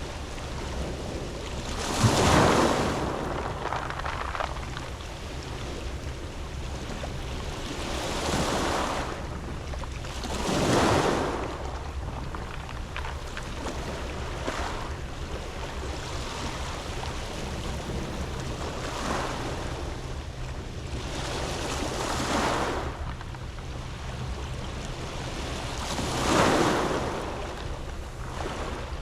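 Waves breaking and washing on a pebble beach, swelling up about six times, each surge a rush of hiss that dies back, over a steady wash of surf.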